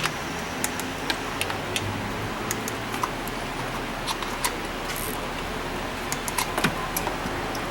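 Irregular light metallic clicks and clinks of hand tools and bolts on engine parts, a quick flurry of them near the end, over a steady workshop hum.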